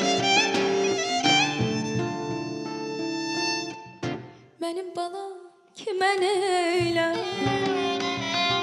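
Violin playing a melody over acoustic guitar accompaniment. The music breaks off briefly about halfway, then the violin comes back in with wavering held notes.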